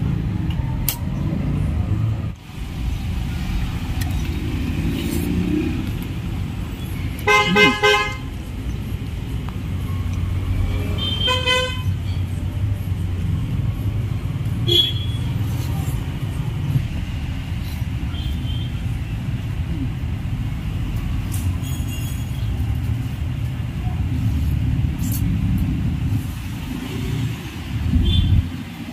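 Steady rumble of road traffic, with a car horn tooting about seven seconds in and again about eleven seconds in.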